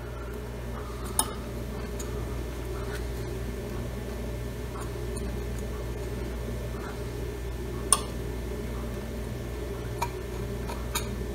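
Steady low hum of the room, with a few faint, light clicks of a small metal spatula against a glazed ceramic bowl as epoxy filler is pressed into its cracks; the sharpest click comes about eight seconds in.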